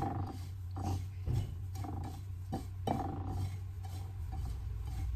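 Fingers mixing panko breadcrumbs on a ceramic plate, with a few light clicks against the plate, over a steady low hum.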